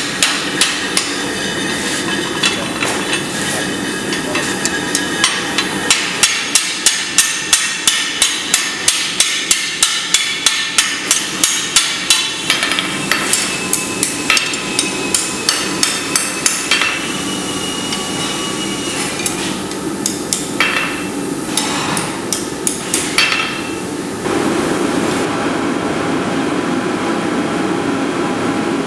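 Blacksmith's hand hammer striking a red-hot iron bar on an anvil: a steady run of ringing blows, about two to three a second. About two thirds of the way through, the blows thin out to a few scattered strikes. Near the end the hammering stops and a steady rushing noise takes over.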